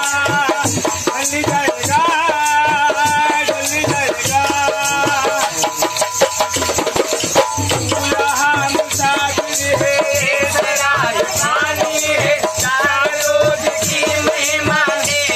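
Two hand-played dholak drums beating a fast, steady folk rhythm, with one or more voices singing loudly over them.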